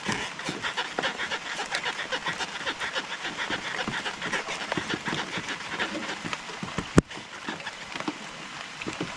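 Rain falling on a wooden boat and the camera, a dense, irregular run of small drop ticks, with one sharp click about seven seconds in.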